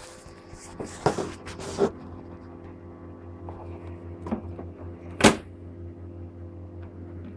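Handling noise from the camera being set up on a desk: rubbing and a few knocks in the first two seconds, a lighter knock about four seconds in and a loud sharp knock just past five seconds, over a steady low hum.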